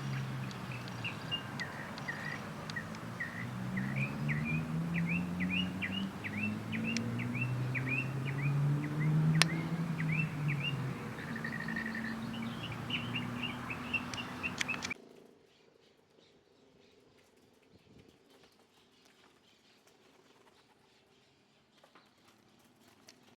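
Birds chirping in a quick run of short, sharp notes, with low pitched tones beneath them. About two-thirds of the way through the sound cuts off abruptly and only faint background remains.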